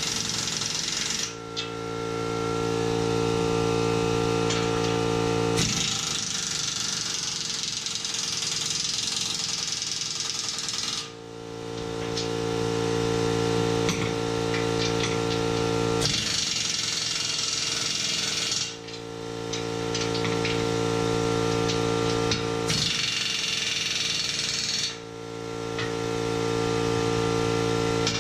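An air impact wrench runs in four bursts of several seconds each, driving in the hoist's 22 mm support-arm bolts, with a rattling hiss of air. Beneath it an air compressor hums steadily.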